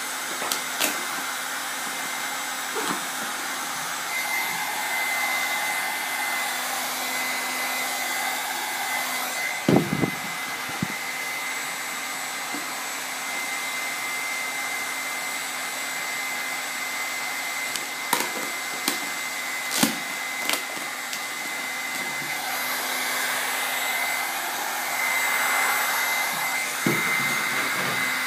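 Heat gun blowing steadily as vinyl wrap film is warmed and worked onto a cycle wing, with a faint hum and whine in its noise. A few short knocks from handling the wing and film, the loudest about ten seconds in and more around eighteen to twenty seconds in.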